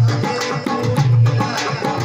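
Odia nama sankirtan devotional music: hand drums and cymbals play a fast, steady rhythm, with a deep drum stroke about once a second.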